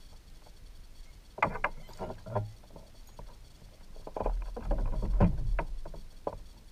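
A hooked bass splashing at the surface and being lifted out of the water, then knocks and rustling as it is swung to the kayak and handled. There are two bursts of sound: a short one about a second and a half in, and a longer, louder one in the second half.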